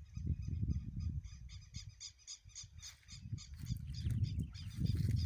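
Wind buffeting the microphone in gusts, with a bird's rapid, evenly repeated high chirps running over it.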